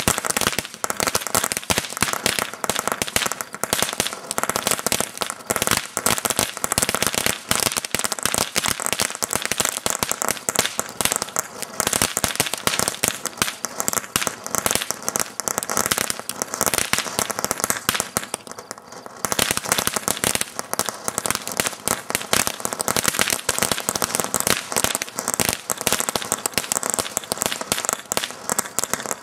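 Ground fountain firework spraying sparks with a dense, rapid crackling. The crackle eases off briefly about two-thirds of the way through, then picks up again.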